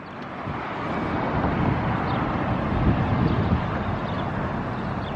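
Strong gusty wind buffeting the microphone, with road traffic going by; it swells over the first second and then holds as a steady rush.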